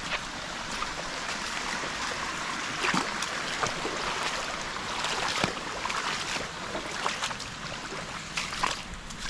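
Steady rush of running water, with scattered sharp clicks and knocks over it.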